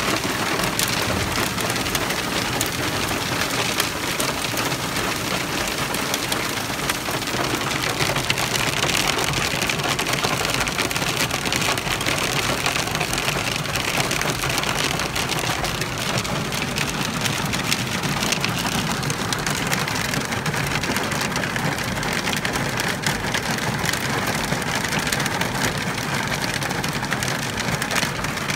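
Hail and rain falling on a vehicle and the ground around it, heard from inside the vehicle: a steady, dense patter of many small hits.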